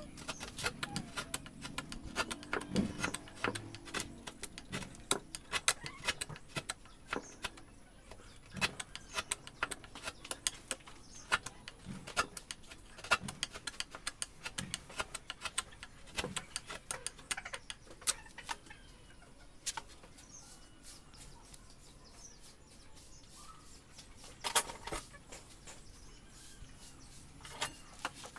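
Wood carving chisel work: irregular light taps and clicks of a chisel cutting into wood. The taps thin out for a few seconds in the latter half, then a couple of sharper knocks come near the end.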